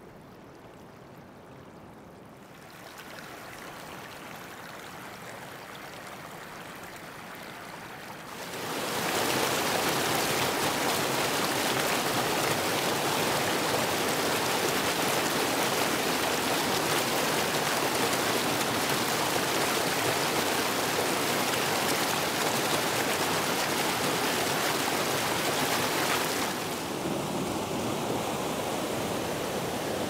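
Fast-flowing mountain water rushing steadily, with no distinct splashes or drips. It gets louder about two and a half seconds in, much louder about eight and a half seconds in, and eases slightly near the end.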